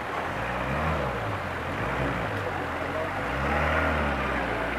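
A vehicle's engine revving up and settling back twice, about a second in and again between three and four seconds in, as it is driven through a river crossing.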